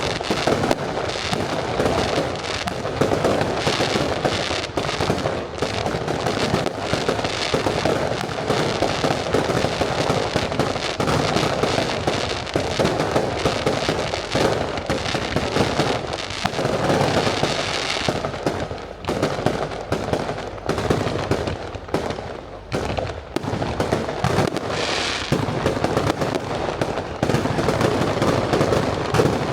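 Aerial fireworks display going off in a dense, continuous barrage: many shells bursting in quick succession over a steady crackle, with brief slight lulls about two-thirds of the way through.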